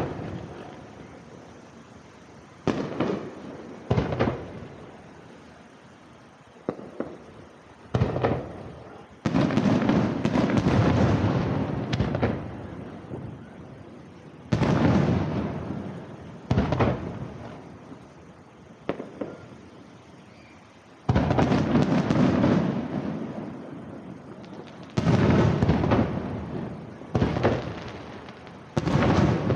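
Aerial fireworks shells bursting at irregular intervals, each sharp bang trailing off in a long rolling rumble. Around ten and twenty seconds in, the bursts come in quick runs that last a few seconds.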